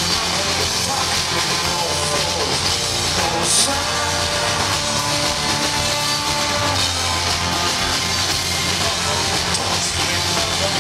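Live rock band playing an instrumental passage: drum kit, bowed cello, acoustic guitar, electric bass and accordion together, with one brief loud accent about three and a half seconds in.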